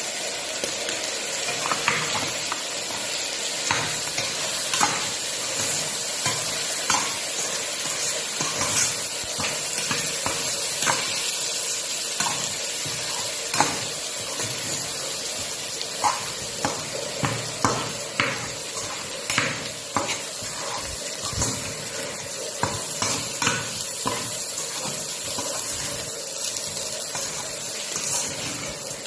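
Rice sautéing in a stainless steel pot with chicken, sizzling steadily, while a metal spatula stirs it and scrapes and knocks against the pot at irregular intervals, about once a second.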